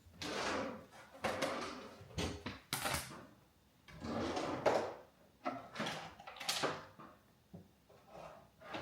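Kitchen handling sounds as ingredients and utensils are gathered: a string of knocks, slides and rustles about a second apart, such as a drawer opening and closing.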